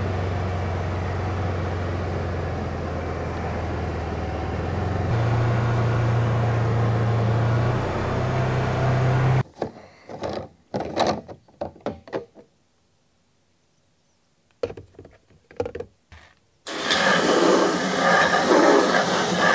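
A UTV engine runs steadily for about nine seconds, its pitch stepping up about halfway, then stops. A few scattered knocks and clicks follow as the plastic sprayer tank's lid is handled. Near the end, water from a garden hose rushes into the tank with a loud steady hiss.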